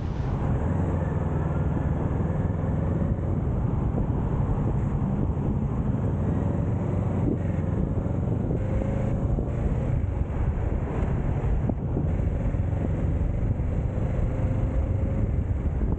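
Wind rushes steadily over the camera microphone while the Kawasaki Z650 is ridden. The motorcycle's parallel-twin engine runs underneath, its note drifting slowly in pitch.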